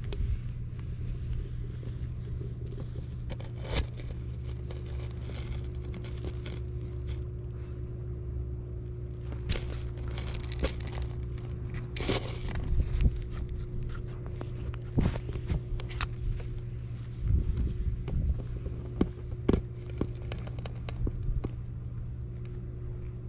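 Gravel crunching and scraping close to the microphone as a cat rolls and rubs on the ground, with scattered sharp clicks, over a steady low hum.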